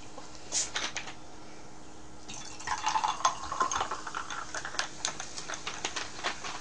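Cola poured from a plastic bottle into a glass, splashing and fizzing, with crackling foam; a short hiss comes about half a second in.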